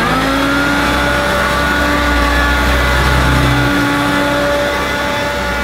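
Hoover Turbomaster upright vacuum cleaner motor whining as it comes up to speed just after being switched on, then running steadily. The brush roll is turning and the cleaner is pushed over carpet.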